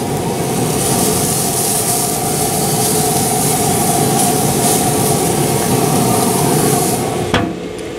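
A thick ribeye sizzling on the hot grate of an open Weber SmokeFire pellet grill, over the grill's steady mechanical hum. Near the end the hiss stops and a single clunk follows as the lid shuts.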